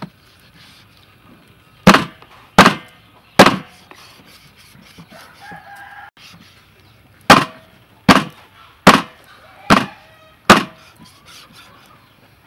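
Cleaver chopping through raw skin-on pork onto a wooden chopping board. There are three heavy chops about two seconds in, then five more evenly spaced, a little under a second apart, later on.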